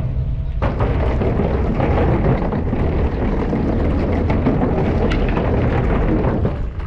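Wind buffeting an action camera's microphone: a steady, loud rumbling noise.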